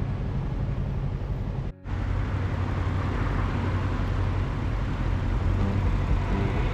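Motorcycle riding at road speed: steady engine drone mixed with wind and road noise, briefly cutting out for an instant nearly two seconds in.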